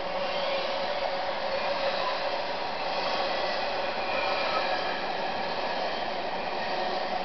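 Double-stack container cars of a Norfolk Southern intermodal freight train rolling past below, a steady rushing noise of wheels on rail.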